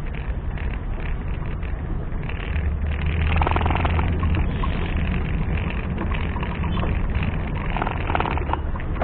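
Off-road 4x4 engine running steadily, getting louder about three seconds in.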